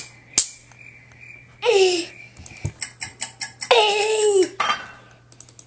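Baby laughing in two bursts of high, falling squeals, a short one nearly two seconds in and a longer one about a second later, with quick clicks in between.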